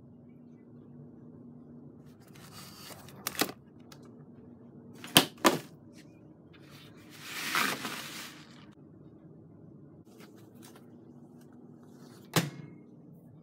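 Kitchen items being handled over a steady low hum: a couple of clicks, then two sharp knocks in quick succession, a rustle lasting about a second and a half, and a single sharp knock near the end.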